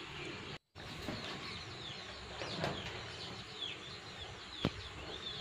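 Birds chirping: a scatter of short, high, falling chirps over a steady background hiss. The sound cuts out completely for a moment just after the start, and a single sharp click comes about four and a half seconds in.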